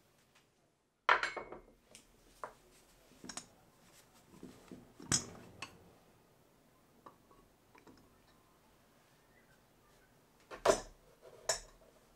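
Aluminium Afghan pressure cooker's lid being worked loose and lifted off: scattered metal clanks and clicks with quiet gaps between, and the loudest pair of knocks near the end.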